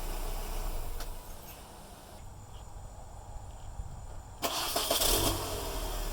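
MINI Cooper R50/R52 four-cylinder engine running, then dropping away about a second in to a faint low hum. About four and a half seconds in it starts again with a sudden loud burst and settles into running.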